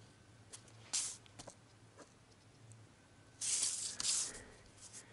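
Faint handling noise: soft rustles of a paper sheet being moved under a pen, with a few light clicks and a louder rustle lasting about a second near the end.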